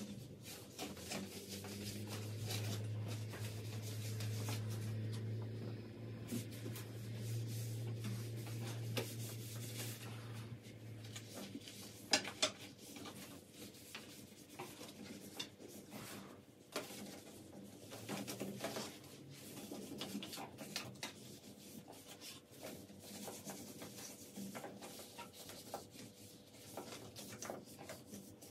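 Rubbing and scrubbing sounds mixed with light knocks and clatter of household things being handled. A low steady hum runs under it for the first ten seconds or so, and one sharper knock comes about twelve seconds in.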